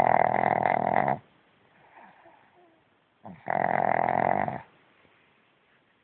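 A pug snoring: two long snores, each just over a second, about three seconds apart. His owner says he snores like this even when awake, to stay in bed.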